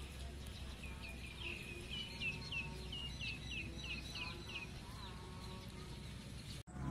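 A bird calling: a run of about a dozen short, falling chirps, roughly three a second, starting about a second in and stopping a little past the middle, over a low steady hum.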